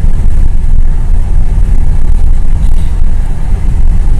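Steady low rumble of a car driving at highway speed, heard from inside the cabin: engine, tyre and road noise.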